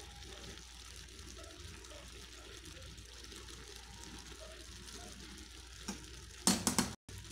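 A faint, steady hiss with soft scraping as food is spooned from the pot onto a plate. Near the end a metal serving spoon clinks sharply a few times against the pot.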